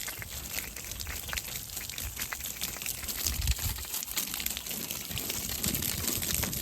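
Water splashing and pattering steadily onto a garden bed as it is watered.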